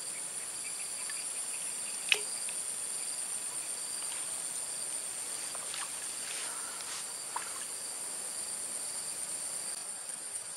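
Steady high-pitched insect chorus, crickets or cicadas, humming without a break, with one sharp click about two seconds in.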